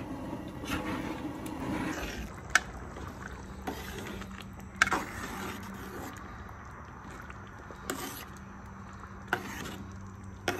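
A metal spoon scraping and knocking against the side of a large pot as rice jambalaya is stirred, giving short sharp clicks a second or two apart. Under them runs the steady low rush of the propane burner heating the pot to the boil.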